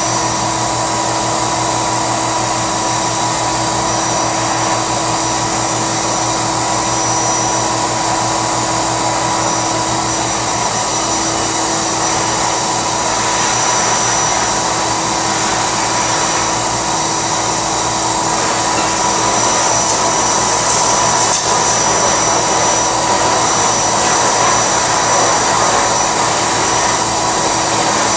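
Barrel-type canister vacuum cleaner running continuously. Its motor gives a steady hum and whine over the rush of air being sucked through the hose.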